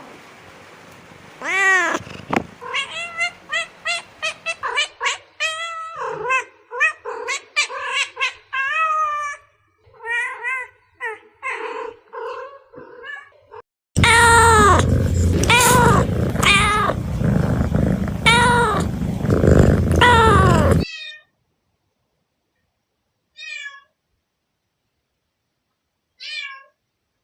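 A cat meowing over and over in short calls that rise and fall in pitch, about two a second. Then comes a stretch of louder meows over a steady low background noise, and later a couple of single meows with silence between them.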